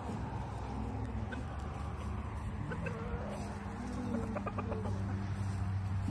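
Free-ranging chickens clucking, with a quick run of clucks about four seconds in.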